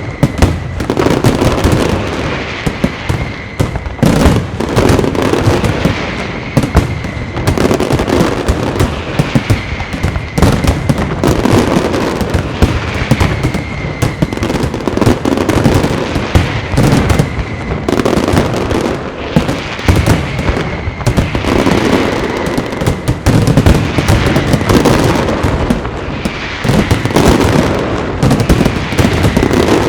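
Aerial firework shells bursting in a dense, continuous barrage of bangs and crackles, with a whistling tone coming back every couple of seconds.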